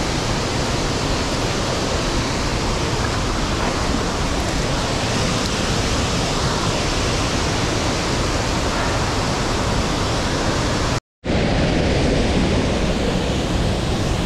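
Waterfall and creek water rushing over boulders: a steady, even roar. It breaks off completely for a split second about eleven seconds in.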